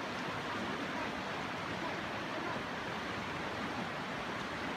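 Shallow rocky river rushing steadily over boulders and riffles, a constant even rush of water.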